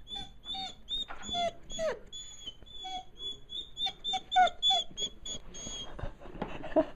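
Nine-month-old Vizsla puppy whining: a string of short, high-pitched whines, a few of them sliding down in pitch. She is begging to be let up onto the bed.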